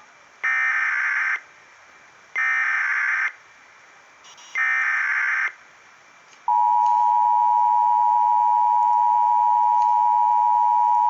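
Emergency Alert System alert start: three short buzzy SAME header data bursts about two seconds apart, then the steady two-tone EAS attention signal (853 and 960 Hz) starting about six and a half seconds in.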